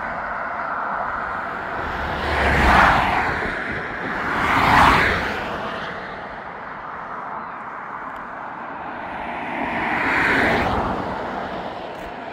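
Road traffic passing on a main road: three vehicles swell up and fade away, about three, five and ten seconds in, over a steady background of traffic noise.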